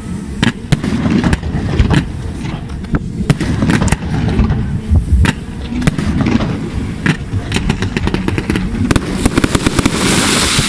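Aerial fireworks display: many bangs of shells bursting overhead in quick, irregular succession over a constant low rumble. A dense hissing crackle swells near the end.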